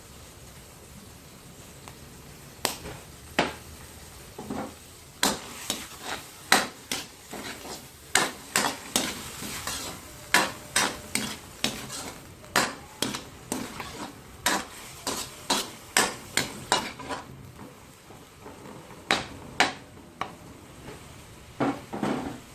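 Ground meat sizzling in a frying pan while a utensil stirs it, knocking and scraping against the pan in an irregular run of sharp clacks. There is a short pause near the end before a few more strokes.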